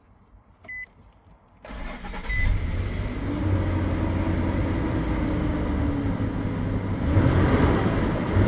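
A short beep, then about a second and a half in the 2005 Nissan Pathfinder's V6 engine cranks, catches and settles into a steady idle, a little louder near the end. This is the first start with the new oil pressure sensor fitted.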